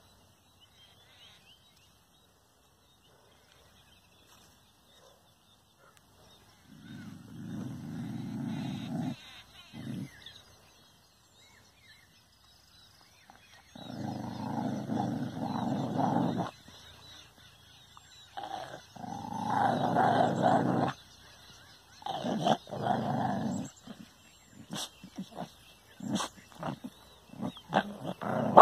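A dog growling in several long bouts of two to three seconds each, after a quiet opening of about six seconds. The growls break into shorter, choppier bursts near the end.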